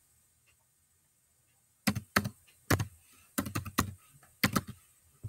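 Typing on a keyboard: about a dozen sharp key clicks in short, irregular bunches, starting about two seconds in.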